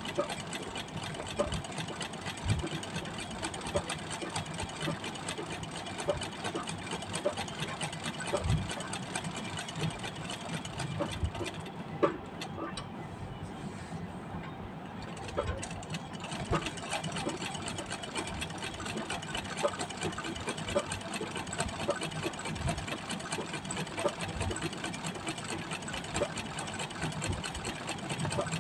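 Straight-stitch treadle sewing machine running steadily for free-motion embroidery, its needle and mechanism making a rapid stitching clatter. The clatter eases for a few seconds about twelve seconds in.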